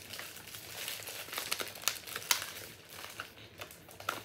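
Thin plastic crinkling in irregular sharp crackles.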